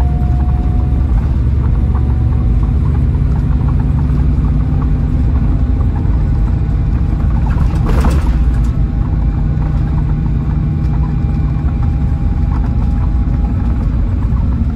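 Scania K440 coach running, heard from inside the passenger cabin: a steady low engine and road rumble, with a brief noisy burst about eight seconds in.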